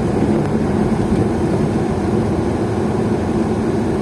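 A vehicle's engine running steadily at cruising speed with continuous road noise, heard from on board while driving.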